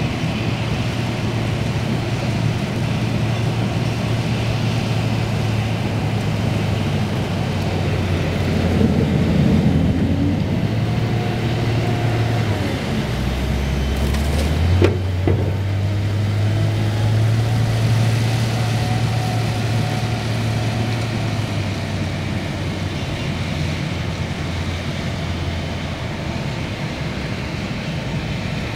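Caterpillar 972H wheel loader's diesel engine running while it works, the engine note rising about nine seconds in and dropping and shifting around thirteen to fifteen seconds as the loader comes close and then backs away. A single sharp clank about fifteen seconds in.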